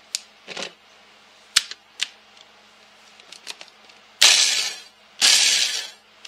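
A few sharp clicks, then a food processor pulsed twice near the end, each pulse just under a second of loud whirring and crunching as it grinds pork rinds into crumbs.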